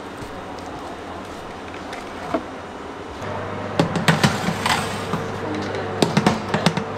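A metal baking tray clattering and scraping on the oven's rack rails as it is slid in, starting about four seconds in. Under it is the steady hum of the running oven, which sets in just before.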